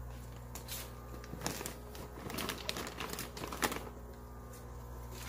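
Plastic fish-shipping bags full of water crinkling and tapping as they are handled and floated in an aquarium, a cluster of sharp clicks and rustles through the middle, over a steady low hum.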